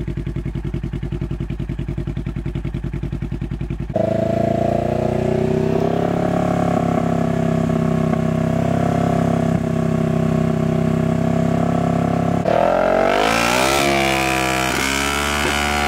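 Polaris Ranger XP 1000's 999 cc twin-cylinder engine through a Speedwerx L2 Comp aftermarket muffler, idling with a steady pulsing exhaust note, then about four seconds in jumping up and held steady at about 4000 rpm, much louder. Near the end the note changes and its pitch falls.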